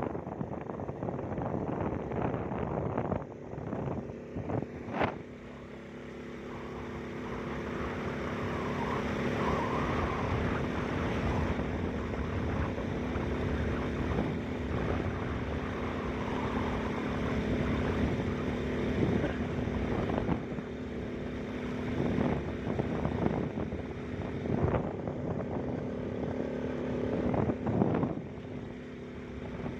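Motorcycle engine running at a steady cruising speed while riding, with a steady engine note and road and wind noise. A few brief knocks come through, around five seconds in and again near the end.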